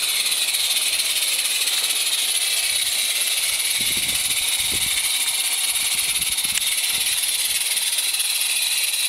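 Two Accucraft Lynton & Barnstaple live-steam garden-railway locomotives working a train together, heard as a steady high hiss of steam.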